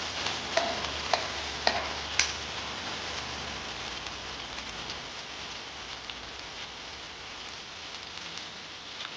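Food frying in hot oil in a pan, sizzling steadily, with a few sharp clicks of a utensil against the pan in the first two seconds as it is stirred.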